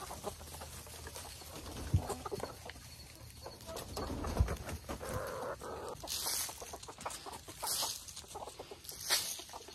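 Laying hens and a rooster clucking quietly, with a few short rustling noises in the second half.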